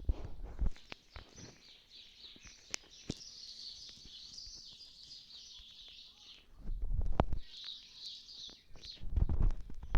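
Birds chirping in a dense, high-pitched chatter that comes in two spells, with low rumbling thumps about seven seconds in and again near the end.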